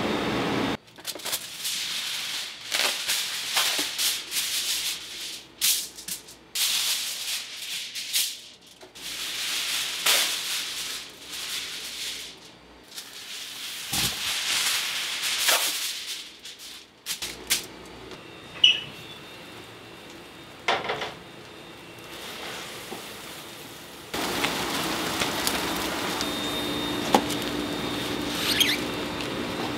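Kitchen cooking sounds: bursts of rattling, shaking noise with short gaps for about the first seventeen seconds, then a few quieter clicks, and a steady hum from about twenty-four seconds in.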